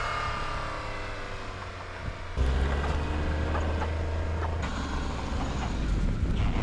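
A motor engine running, in short edited snatches. Its pitch falls over the first two seconds, then after a sudden cut a steady deep engine note takes over.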